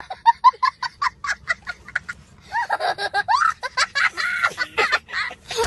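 A young child laughing hysterically: a fast run of short, high-pitched 'ha' sounds, then longer laughs that rise and fall in pitch.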